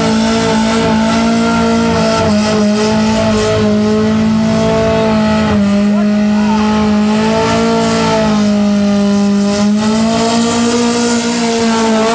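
Car engine held at high, nearly steady revs while the tyres spin and squeal on pavement in a burnout.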